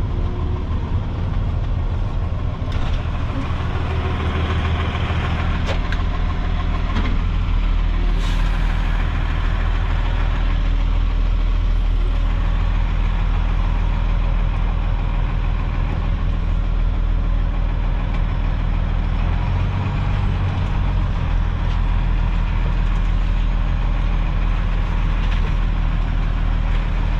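Dump truck's diesel engine running steadily at low revs while the truck is manoeuvred in reverse.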